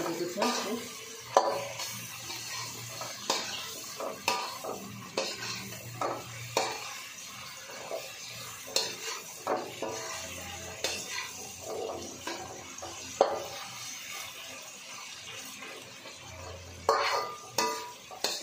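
Chilli chicken being stirred in a pan: a cooking utensil scraping and knocking against the pan at irregular intervals over a steady frying sizzle, with a few sharper knocks near the end.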